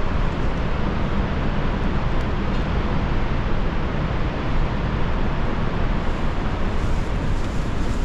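Steady rushing of the Iguazu Falls' water, an even noise heaviest in the low end, with no breaks.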